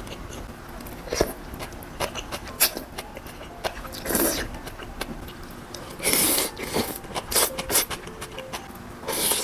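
Close-miked eating sounds: a person chewing and slurping japchae glass noodles, with a run of small wet mouth clicks. Longer slurps come about 4 s, 6 s and 9 s in.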